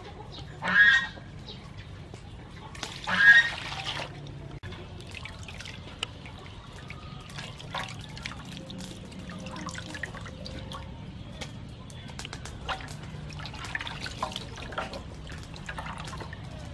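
Water splashing and dripping in a metal basin as handfuls of shelled clam meat are rinsed, lifted and squeezed by hand, with small irregular wet clicks and squelches. An animal calls loudly twice in the first few seconds.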